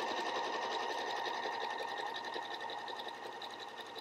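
Elna Excellence 680+ computerized sewing machine, with its full rotary hook and top drop-in bobbin, sewing a zigzag stitch: a rapid, even stitching rattle over a steady high motor whine, quiet and smooth, easing a little toward the end.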